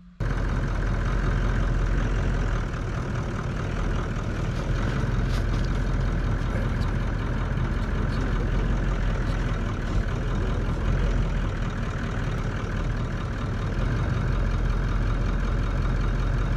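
A vehicle engine idling steadily. It starts abruptly right at the beginning and holds an even level.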